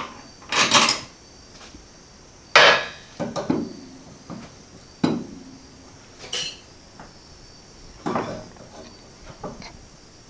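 Scattered metallic clanks and knocks, about seven in ten seconds, the sharpest about two and a half seconds in, as an S1 Built metal lower control arm with heim joints is handled and fitted up to the trailing arm mount.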